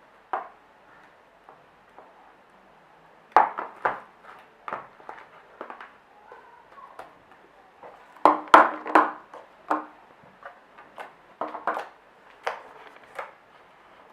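Shaving-foam slime being squeezed and stretched by hand, giving irregular sticky clicks and pops, with a dense cluster of louder pops about eight seconds in.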